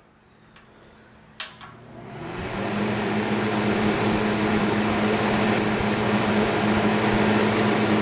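Rex-Ray X-500 vintage box fan: a click about a second and a half in, then the fan spins up over about a second into a steady motor hum and rush of air. It runs smoothly, its motor bearings freshly oiled through the wick.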